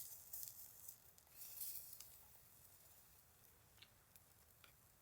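Near silence, with faint soft crackling in the first two seconds that fades away, then a couple of small clicks.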